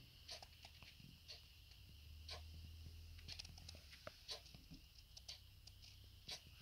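Near silence: quiet room tone with a faint low hum and scattered soft clicks.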